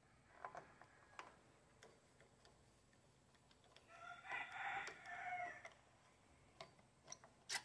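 Light clicks and taps of a screwdriver working on the fittings of a generator engine, with a sharper click near the end. About halfway through comes a faint, drawn-out bird call lasting about a second and a half.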